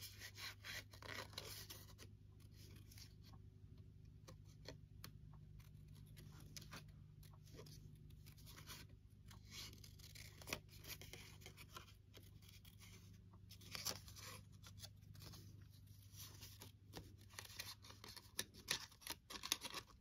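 Scissors snipping paper in quiet, irregular cuts, with paper rustling between them, over a steady low hum.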